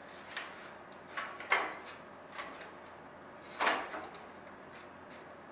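Several separate light metallic knocks and clatters as thin aluminium wing parts are handled and a rib is set back in place in the wing frame. The loudest knocks come about a second and a half in and again at about three and a half seconds.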